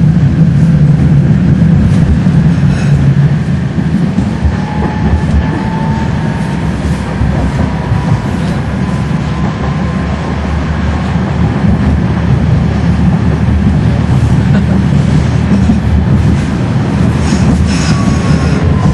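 Tram running along its rails, heard from inside the car: a steady low rumble of wheels and running gear, with a thin wheel squeal that glides up and down about five seconds in and again near the end, and a few sharp clicks over the track.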